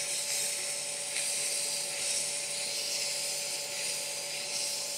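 Wood lathe running with a steady motor whine and hum while 800-grit wet/dry sandpaper is held against the spinning acrylic pen blank, giving a steady wet sanding hiss.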